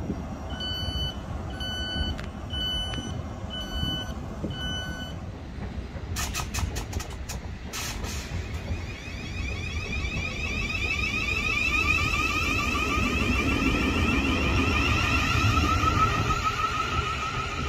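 Five electronic beeps, about one a second, followed by a few sharp clicks. Then a South Western Railway electric multiple unit moves along the platform, its traction motors giving a pulsing whine over a low rumble that grows louder.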